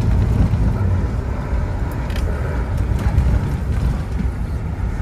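Inside a moving Scania K230UB OmniLink single-deck bus: a steady low rumble from its five-cylinder diesel engine and road noise, with a few light rattles about two and three seconds in.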